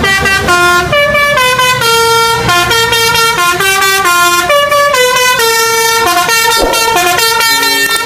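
Telolet-style musical air horn playing a quick tune, its loud tones stepping from note to note several times a second.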